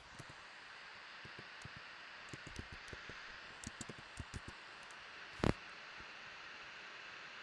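Computer keyboard being typed on: a run of light key clicks, then a louder double click about five and a half seconds in, over a steady background hiss.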